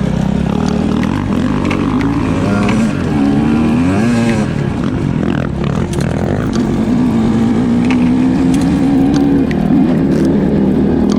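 Dirt bike engine revving up and down while riding a trail, its pitch rising and falling repeatedly, then holding steadier in the second half.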